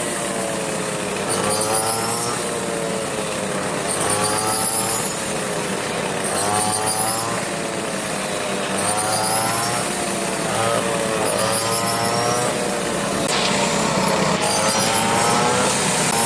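An engine-driven machine running, with a steady low hum and a whine that rises and falls in pitch in a regular cycle about every two and a half seconds.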